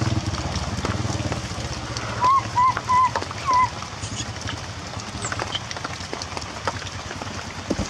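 A baby monkey gives four short, wavering high calls in quick succession about two seconds in, over the patter of rain, with a low hum fading out in the first second and a half.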